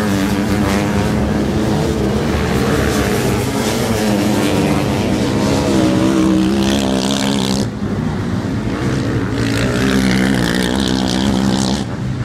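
Several racing sidecar-motocross outfits' engines running hard on a dirt track, the pitch rising and falling as they rev and shift, with overlapping engines. The sound dips briefly about two thirds of the way through, then picks up again.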